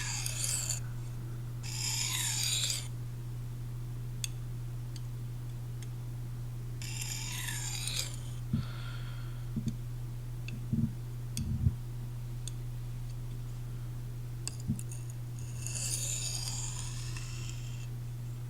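Steel knife blade (a Magnacut Sebenza) drawn across a sharpening stone in four slow, separate scraping strokes, with a few soft low knocks between them. A steady low hum runs underneath, which the sharpener takes for his computer's hard drive.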